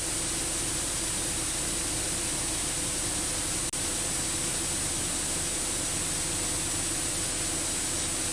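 Steady cockpit noise of a Cessna Grand Caravan's PT6A turboprop in flight, heard as an even hiss with a faint steady hum, with one brief dropout a little over halfway through.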